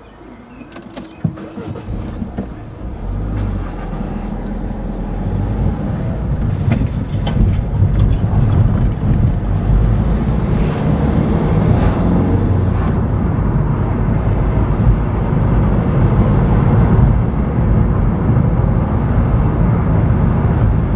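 Car pulling away and driving along a road: engine and road noise build over the first few seconds, then hold as a steady rumble. A few sharp clicks come about one to two seconds in.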